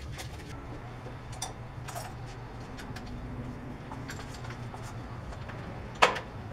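Packing material being pulled off a new bicycle and handled, with scattered light rustles and clicks over a steady low hum, and one sharp knock about six seconds in.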